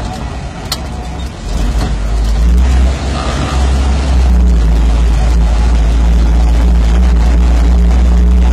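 Freshly rebuilt car engine pulling the car along, heard from inside the cabin. The engine sound eases off for about the first two seconds, then comes back up at about three seconds and holds steady under load.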